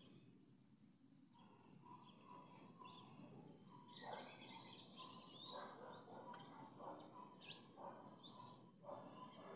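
Faint chirping of small birds, many short high calls crowding together from about two to six seconds in, with one quick rising call a little after seven seconds, over a steady low background hiss.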